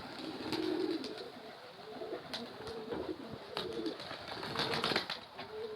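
Domestic pigeons cooing, several low coos one after another, with a few short sharp clicks among them.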